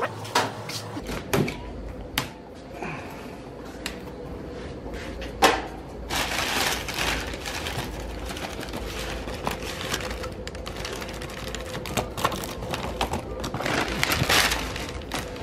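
A few sharp knocks and clicks, then newspaper packing crumpling and rustling as it is pulled back off plastic tubs, in a long stretch about six seconds in and again near the end.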